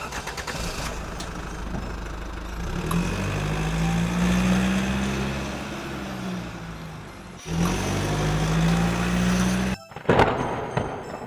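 An engine running, its low hum rising and then falling in pitch over a steady hiss; it breaks off suddenly twice.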